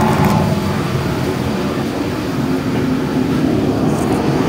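Steady low roar of commercial kitchen cooking equipment, such as gas wok burners and fans, running without a break. There is a brief rustle near the start and another about four seconds in.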